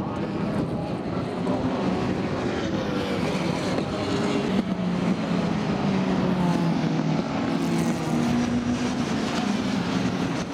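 Engines of several historic saloon race cars running hard through a corner, their pitch rising and falling in overlapping glides as the cars pass.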